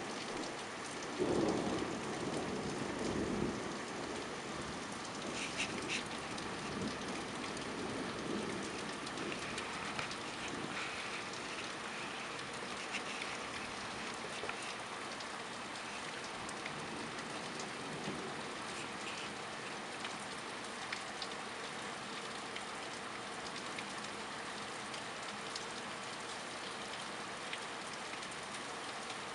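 Steady rain falling, with a rumble of thunder that swells about a second in and dies away over the next few seconds.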